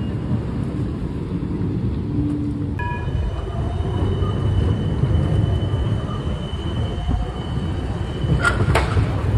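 City trams running past on street track: a steady low rumble of wheels and motors, with a thin, steady high whine in the latter part and a few sharp clicks near the end.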